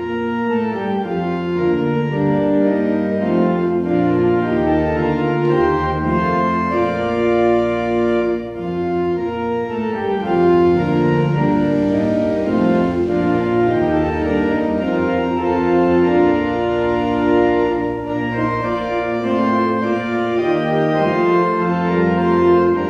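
Church organ playing slow, sustained chords that change every second or so.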